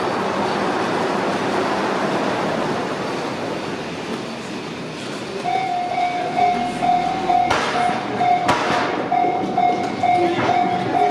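A train running past with a steady noise that eases off. About five seconds in, a Japanese level crossing's electronic warning bell starts ringing, a repeating "kan-kan" tone about twice a second. Two sharp knocks sound a second apart partway through the ringing.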